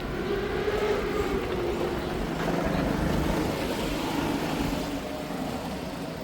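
A motor vehicle passing on the street, its engine note sliding slightly lower as it fades over the last couple of seconds.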